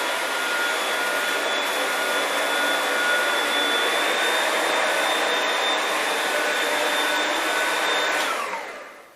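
Oreck XL2 upright vacuum cleaner running in its first, lower-power mode: a steady motor whine over a rushing hiss. About eight seconds in it is switched off and winds down, its pitch falling.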